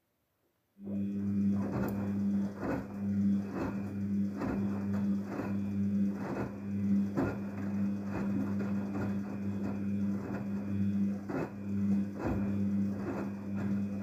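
Daewoo DWD-FT1013 front-loading washing machine's drum motor starting about a second in and running with a steady hum, turning the drum on the wash cycle. Irregular thuds and sloshing come through as the wet laundry tumbles in the water.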